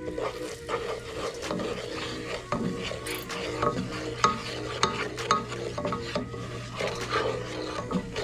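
Wooden spoon stirring, scraping and knocking against a nonstick pot, with curry powder and spices frying in hot oil and sizzling lightly. The strokes come in quick succession, with the sharpest knocks about halfway through.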